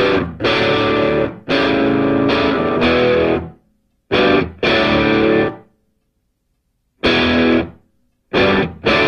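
Background music: a distorted electric guitar plays chords in stop-start phrases, each phrase cut off by a short silence.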